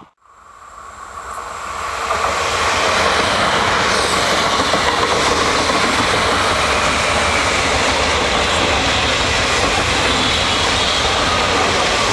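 A Renfe Rodalies electric commuter train passing close by, the steady running noise of its wheels on the rails swelling up over the first couple of seconds and then holding steady.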